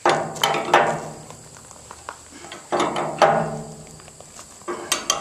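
Three hard pulls on a long wrench turning the nut of a 5/8-inch A325 bolt held in a Skidmore bolt tension calibrator, tightening it a third of a turn. Each pull starts with sharp clicks and a pitched sound that fades over about a second.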